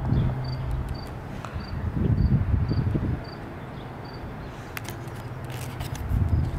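Outdoor ambience: gusts of wind rumbling on the microphone, with a faint high chirp repeating about twice a second.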